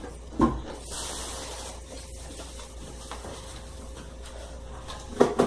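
Kitchen objects being handled and set down: a knock about half a second in and two sharper knocks near the end, with soft rustling in between.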